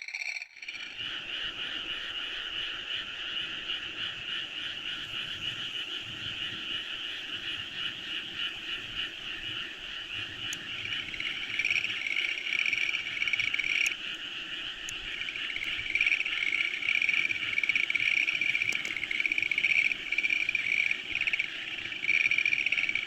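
A chorus of many frogs croaking continuously in overlapping pulsed calls, growing louder about halfway through.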